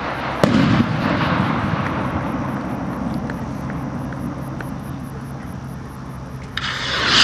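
Fireworks skyrocket display: a sharp report about half a second in, followed by a long low rumble that slowly fades over several seconds. Near the end a rushing hiss swells and cuts off, the sound of another skyrocket launching.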